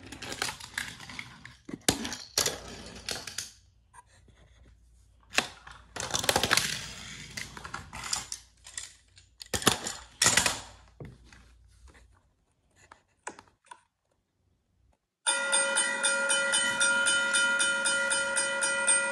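Clicks and knocks of toy train pieces being handled and set down on a hard floor, then a few seconds of near silence. About three-quarters of the way in, a railroad crossing warning sound cuts in suddenly: several steady ringing tones with a fast repeating pattern.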